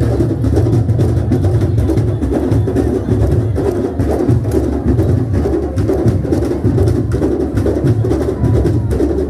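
Candombe drum ensemble (chico, repique and piano drums) playing together in a fast, steady rhythm, with dense strikes throughout and deep low drum tones underneath.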